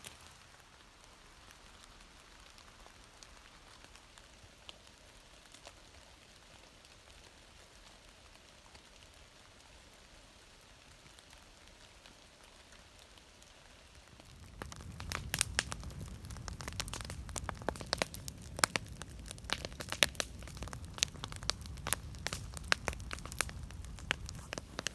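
Firewood burning in a portable wood-burning tent stove, crackling faintly at first; about halfway through it grows louder, a low rumble with dense sharp crackles and pops.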